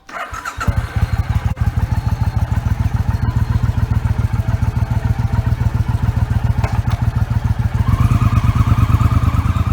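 An engine running with a rapid, even pulse, growing a little louder about eight seconds in.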